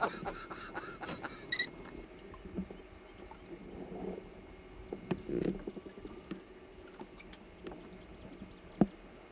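Scattered light knocks and bumps in a small fishing boat, with one sharp knock near the end that is the loudest sound.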